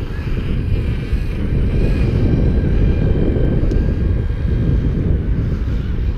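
Multirotor drone's propellers running steadily, heard from its own camera: a heavy low rush of air over the microphone with a faint, slightly wavering whine on top.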